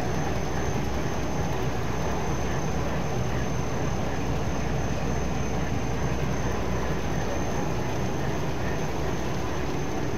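High-speed rotogravure printing machine running: a steady, even mechanical noise of rollers and drives with the film web moving through, with a thin constant high whine over it.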